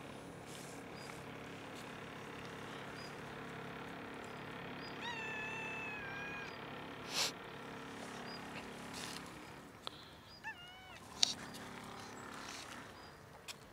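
Grey-and-white stray cat meowing for food: one long, falling meow about five seconds in and a shorter meow around ten seconds, with a couple of sharp clicks between and after.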